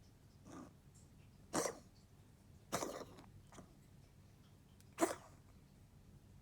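A pet coughing: a faint cough, then three short, sharp coughs spaced one to two seconds apart.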